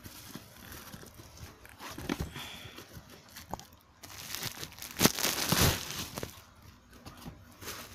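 Plastic bubble wrap crinkling and rustling as it is pulled off a cardboard box, with the loudest sharp crackles about five seconds in.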